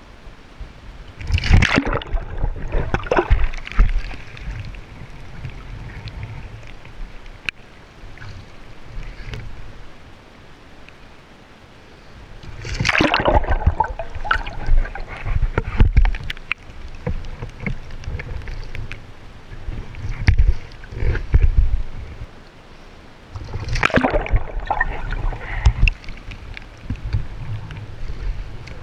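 Sea water splashing, sloshing and gurgling around a Greenland skin-on-frame kayak as it is capsized and rolled back upright. Loud spells of splashing come about a second and a half in, about thirteen seconds in and about twenty-four seconds in, with quieter, muffled sloshing between them while the deck is under water.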